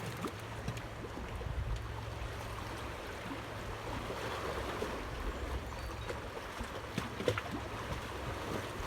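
Steady lapping and rushing of water, with a low background hum and a few small knocks about seven seconds in.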